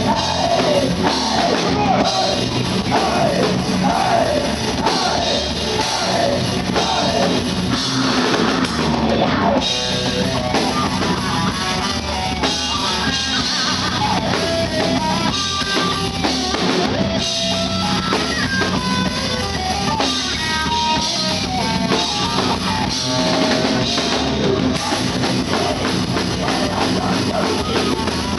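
Metal band playing live: distorted electric guitar, bass and a drum kit, with a vocalist singing at times, loud and steady throughout.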